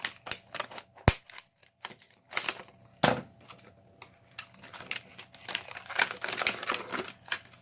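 Irregular metallic clicks and taps of a lock-picking tool being set and worked in a Yale cylinder lock, with two sharper knocks about a second in and about three seconds in.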